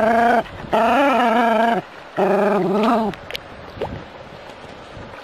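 Dog whining in three long, drawn-out cries with a wavering pitch, the first already under way at the start and the last ending about three seconds in; a few faint clicks follow.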